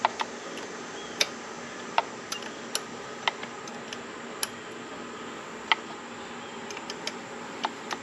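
Ratchet clicking in short, uneven strokes, about a dozen sharp single clicks, as the shift lever's pinch bolt is snugged down onto the splined shifter shaft.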